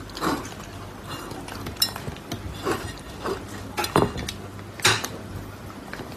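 A raccoon pawing at and eating from a ceramic plate: several sharp clinks and taps of claws and plate, with a low steady hum underneath.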